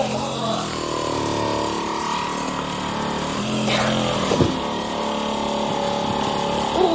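Handheld percussive massage gun running steadily against the muscles of the back, a continuous motor buzz with a brief change in pitch about four seconds in.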